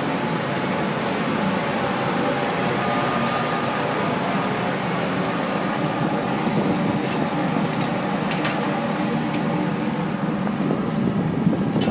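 Steady hum of running boiler-room machinery, with several steady tones in it and a few light clicks about two-thirds of the way through.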